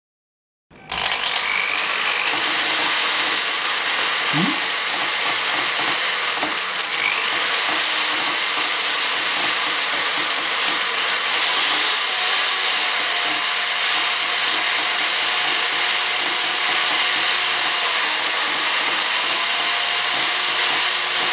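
Electric drill starting up about a second in and running steadily, its bit grinding into the glass screen of a Ulefone Metal smartphone. A high motor whine runs over the grinding noise and dips briefly in pitch about seven seconds in as the bit bears down.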